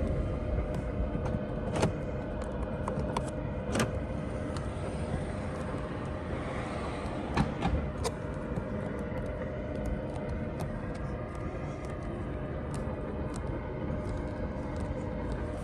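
A steady low hum and rumble inside a car cabin, with a faint steady tone. Several sharp clicks and taps come through it as plastic trim pieces are handled and pressed down onto their tape.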